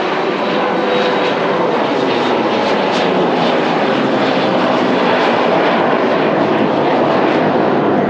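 Steady, loud jet noise of a Kawasaki C-1 transport's two turbofan engines climbing out just after takeoff.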